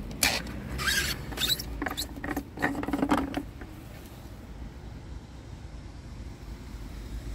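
Plastic filler cap on a Scania R truck's coolant expansion tank being twisted off by hand: a quick run of squeaks and clicks over the first three and a half seconds, then only a low steady background.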